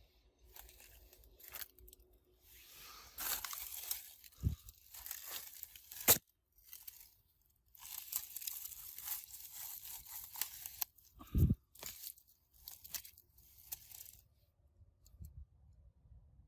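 Irregular tearing and scraping noises in several stretches, with a few sharp clicks (the loudest about six seconds in) and a dull knock later on.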